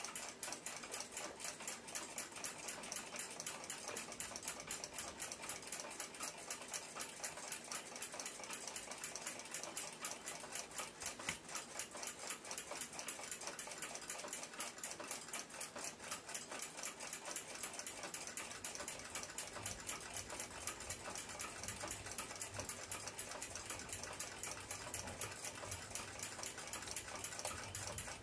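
Clock ticking fast and evenly, several ticks a second, without a break.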